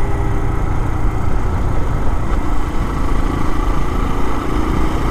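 A vehicle engine running steadily on the move, under a dense low rumble of wind and road noise.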